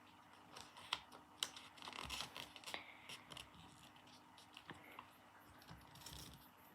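Sheet of paper being folded and creased by hand: faint rustling and crinkling with a few sharp crackles, busiest in the first half.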